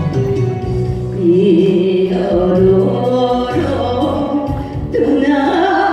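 A singer performing a Korean song live to a backing track with bass, holding long notes with a wide vibrato.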